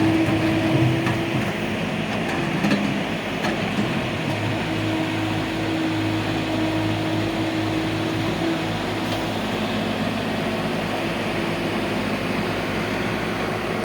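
JCB 3DX backhoe loader's diesel engine running steadily while it works, with a couple of sharp knocks in the first three seconds.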